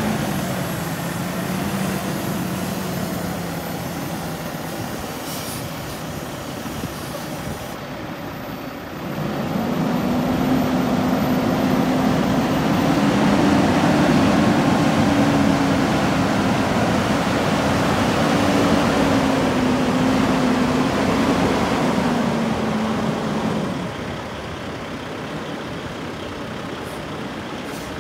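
Heavy diesel truck engine idling. About nine seconds in it gets louder and a little higher in pitch, holds there, and drops back a few seconds before the end.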